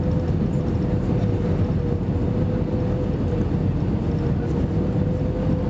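Steady cabin noise of an Airbus A318 airliner on final approach with flaps extended: an even roar of engines and rushing air, with a steady hum running through it.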